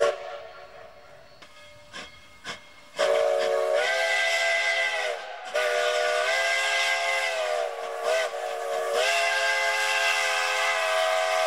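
Narrow-gauge Mikado steam locomotive's chime whistle, sounding several pitches at once, after a brief blast at the start. The whistle blows two long blasts, a short one and a final long one: the grade-crossing signal as the locomotive approaches the road crossing.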